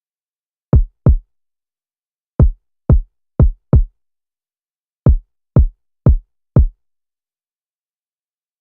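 Electronic kick drum from FL Studio's stock samples, played alone: ten short, deep hits in a syncopated pattern, a pair about a second in, then four, then four more, with silence between them.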